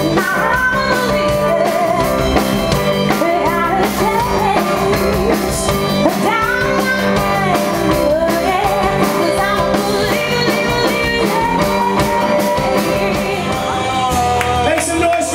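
Live rock band playing, with a woman singing lead over electric guitars and a drum kit.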